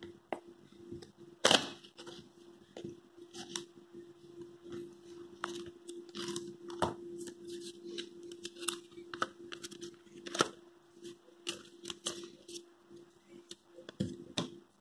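Cardboard box being opened and a folded paper leaflet handled: scattered crinkles, taps and rustles, the sharpest about one and a half seconds in and about ten and a half seconds in. A steady low hum runs underneath.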